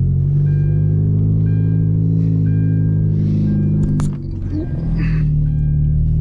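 2010 Hyundai Genesis Coupe's turbocharged four-cylinder engine running steadily at low revs while driving off. The engine drops off briefly about four seconds in, then picks up again. A two-tone warning chime beeps about once a second.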